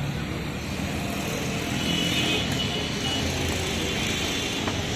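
Road traffic going by: a steady street din of passing vehicles that swells a little around the middle.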